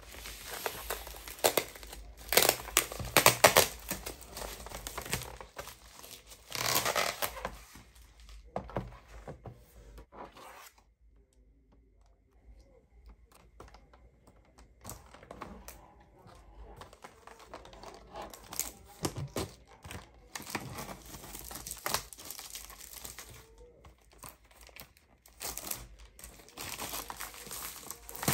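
A padded plastic mailer being torn open, its plastic crinkling and rustling for several seconds. Then, after a short quiet pause, scattered clicks, taps and rustles as a clear hard plastic MacBook shell case is handled.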